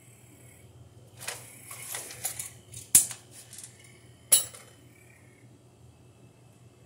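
Small metal hardware and tools being handled: a short rattle and clatter, then two sharp metallic clinks about a second and a half apart.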